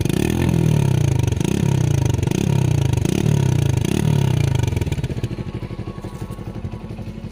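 TVS Radeon 110cc single-cylinder four-stroke motorcycle engine running through an exhaust with its silencer internals cut out. It is blipped about five times, roughly once a second, with a deep 'dup dup' beat like a Royal Enfield Bullet, then settles to a quieter idle after about five seconds.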